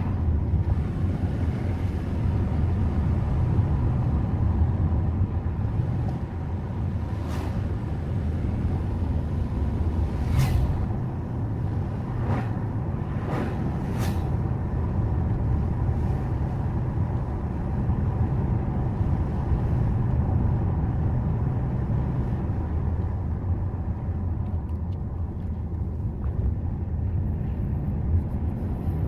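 Subaru Forester's boxer engine and tyre noise heard from inside the cabin, a steady low rumble while climbing a mountain road, with a handful of sharp clicks or knocks near the middle.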